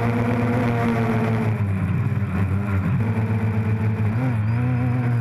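DJI Phantom quadcopter's motors and propellers buzzing steadily, their pitch wavering as the motor speeds change, with a brief dip and rise about four seconds in.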